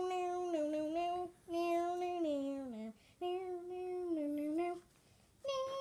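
A child singing in long held notes without clear words: three drawn-out phrases with short gaps, the second sliding down in pitch at its end, and a fourth starting near the end.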